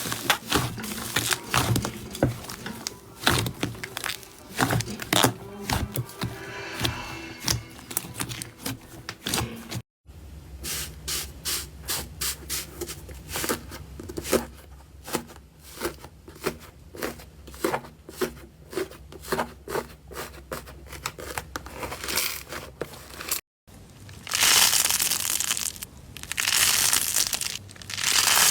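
Slime being squeezed, poked and pulled by hand: rapid sticky crackles, clicks and pops, in three clips separated by brief cuts to silence. The last clip, near the end, is a denser and louder crackling, like tearing.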